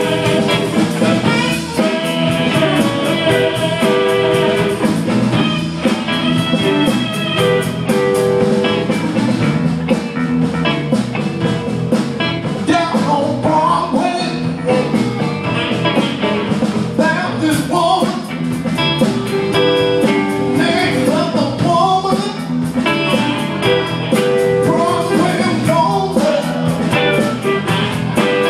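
Live blues band playing: electric guitar, bass guitar, drum kit and saxophone.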